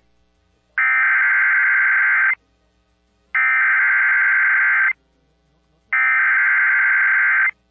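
Emergency Alert System SAME header: three identical bursts of warbling digital data tones, each about a second and a half long, with about a second's gap between them, marking the start of a new flash flood warning broadcast.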